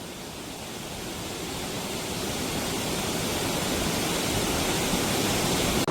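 Waterfall rushing, a steady roar of falling water that grows gradually louder.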